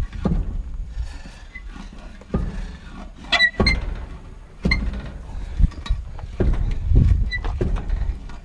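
Heavy calcium-loaded tractor-style tire and steel rim being worked off the hub studs: low scraping and shifting, with several knocks and short ringing metal clinks.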